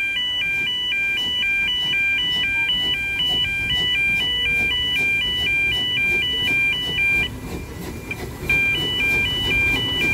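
E2S level crossing alarm sounding a high two-tone warble, about two high-low cycles a second. It cuts out for about a second near the end and then starts again, the fault that makes it a dodgy alarm. Underneath is the low rumble of a narrow-gauge steam locomotive rolling slowly up to the crossing.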